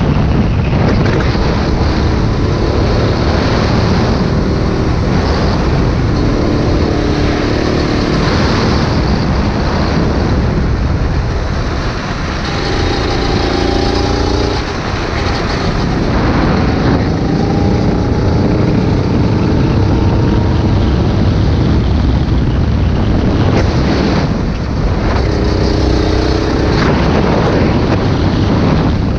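Go-kart engine running at speed, its note falling and rising as the kart brakes into corners and accelerates out, mixed with loud wind noise on the onboard microphone.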